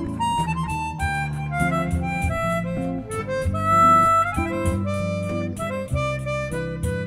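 Chromatic harmonica playing a melodic jazz solo over bossa nova accompaniment of guitar, bass and light percussion, with a long held note about four seconds in.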